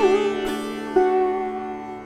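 Sitar playing a slow alap in raga Yaman: three plucked notes over a steady drone, the first sliding in pitch and the last held and fading.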